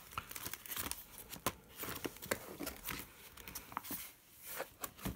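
Clear plastic pocket pages of a ring-binder coin album, holding cardboard coin flips, being handled and turned over, with irregular crinkling and small clicks.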